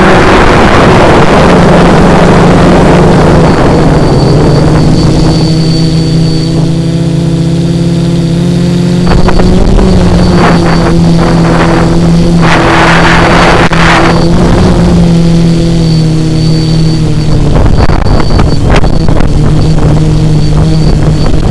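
The three Emax XA2212 brushless motors and propellers of a small tricopter droning in flight, heard close up through the onboard camera's microphone, their pitch drifting a little with the throttle. Wind rushes over the microphone, loudest at the start and in a burst about twelve to fourteen seconds in.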